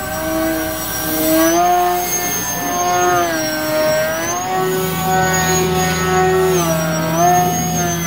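Electric motor and propeller of a small foam RC model biplane whining, its pitch rising and falling smoothly several times as the throttle is opened and closed.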